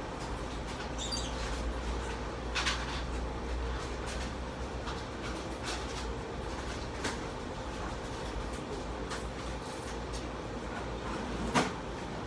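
Convenience store background: a steady low hum with a faint steady tone above it, broken by a few scattered short knocks and clatters, the loudest near the end.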